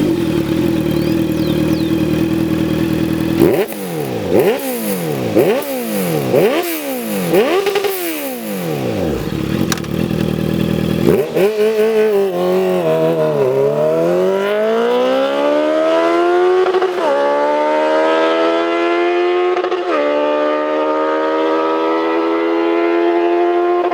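Honda CBR650F inline-four with a Jeskap GP2 titanium and carbon-fibre slip-on exhaust: it holds steady revs, is blipped four times in quick rises and falls, then accelerates with its pitch climbing steadily. The climb is broken twice by brief dips at the upshifts.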